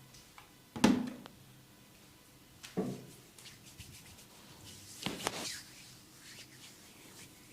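Hands massaging bare skin of the back: three louder strokes about two seconds apart, each fading quickly, with faint rubbing between them.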